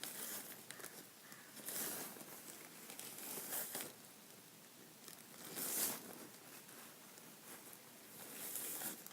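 Borax powder being poured from its container into a plastic bottle cap, heard as about five short hissing pours with faint rustling between them.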